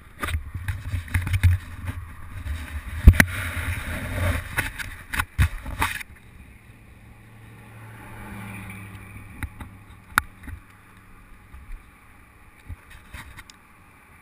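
Handling noise on an action camera's microphone: rumbling and sharp knocks for about the first six seconds. After that, road traffic passing close by, with one vehicle swelling past about eight seconds in, and a few light clicks.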